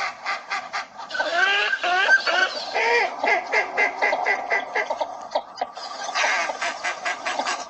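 Northern shoveler ducks calling: many short, overlapping quacking calls that bend in pitch, mixed with rapid clicking notes.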